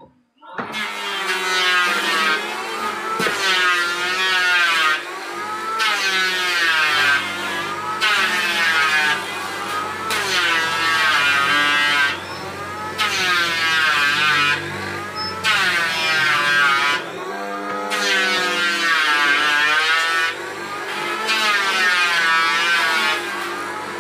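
An electric wood mortising machine starts up about half a second in and runs as its drill bit is plunged and fed along a timber beam. The motor's pitch wavers and its level dips every two to three seconds as the bit bites into the wood and is eased back.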